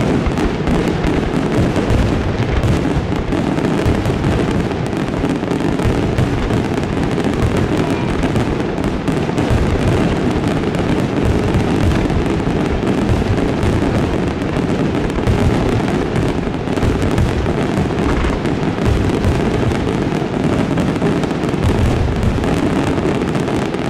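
Aerial firework shells bursting in a dense, unbroken barrage: overlapping booms with no gaps between them, steady in loudness throughout.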